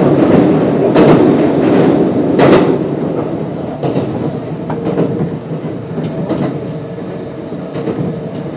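Kintetsu 1259 series electric train with Hitachi GTO-VVVF drive running between stations: a steady rumble with a faint hum underneath and the wheels clicking over rail joints. It is loudest in the first three seconds and eases off after.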